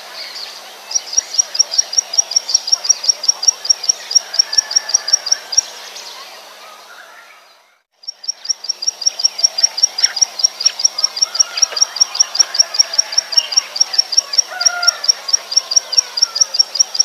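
Plain prinia song: a fast, even series of short, high, sharp notes, about six a second. The series fades out about seven seconds in, stops briefly, then starts again and keeps going.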